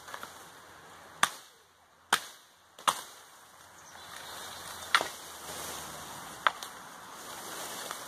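Husqvarna hand-forged camp axe chopping bamboo canes at the base: five sharp, separate strikes at an uneven pace.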